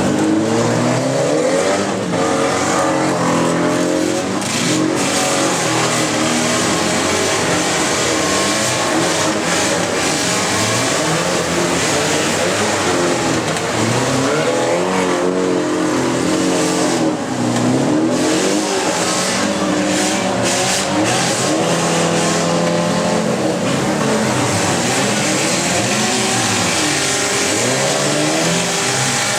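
Several demolition derby cars' engines revving hard at once, pitches rising and falling over each other, with tyres spinning and the odd crunch of cars hitting.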